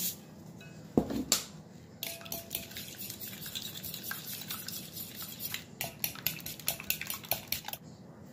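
A metal fork beating eggs in a glass bowl, clinking quickly and repeatedly against the glass, with one sharper knock about a second in. The clinking stops shortly before the end.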